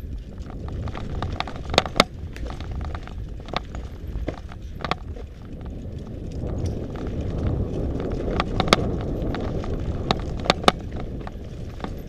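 Mountain bike rolling fast over a rocky dirt singletrack: a steady rumble of tyres on gravel and stones, louder in the second half, with sharp clacks as the bike rattles over rocks.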